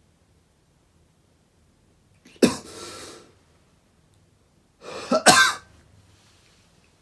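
A person coughs loudly twice, once about two and a half seconds in and again about five seconds in.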